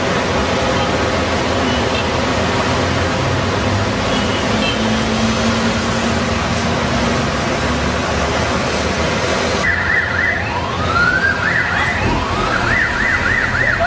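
Steady, loud street-traffic noise that cuts off abruptly about ten seconds in. An emergency-vehicle siren then wails in rising glides, followed by fast up-and-down sweeps.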